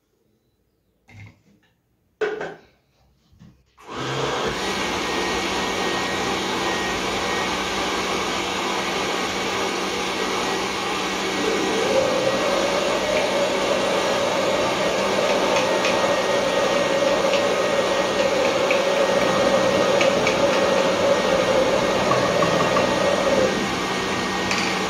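Countertop blender, switched on about four seconds in after a couple of knocks as the jar is seated, blending a thick red chilli paste for kimchi. It runs steadily, getting louder with a higher hum from about twelve seconds in.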